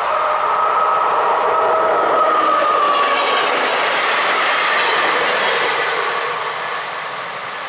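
Electric-locomotive-hauled passenger train passing close by and pulling away: wheel and rail noise with a steady whine that drops slightly in pitch, fading near the end as the train draws off.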